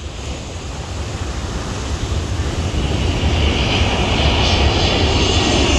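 Jet engines of an Emirates Boeing 777 on its takeoff run, a dense roar that grows steadily louder.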